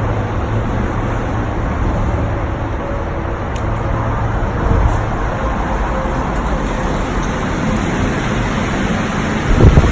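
Steady road traffic noise, with a short low thump near the end.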